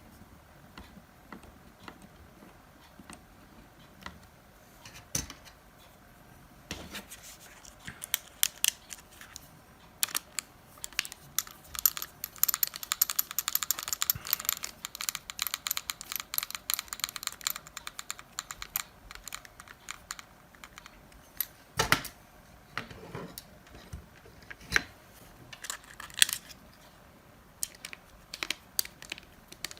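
Small clicks, taps and rattles of hands and a small screwdriver working on the plastic and metal parts of a Nokia 6150 mobile phone as it is screwed together. About twelve seconds in there is a run of several seconds of fast, fine ticking, and a sharper click comes a little after twenty seconds.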